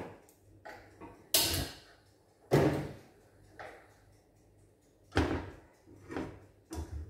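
Kitchen handling noise at a gas stove: a run of about seven sharp clunks and knocks, the loudest about a second and a half, two and a half and five seconds in, as a frying pan and other things at the stove are moved about.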